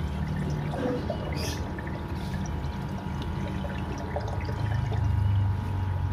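Water pouring and trickling steadily in a fish tank, over a low hum and a faint steady whine. The sound swells slightly near the end.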